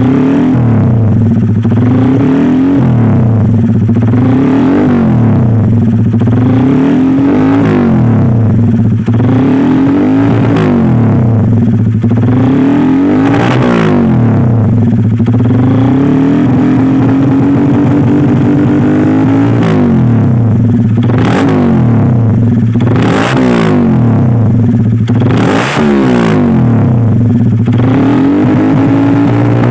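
Honda Sonic's single-cylinder engine revved again and again through a Fanterra Jigsaw aftermarket exhaust with a half-packed muffler. The pitch rises and falls about every one and a half to two seconds, with sharper, harder blips in the second half.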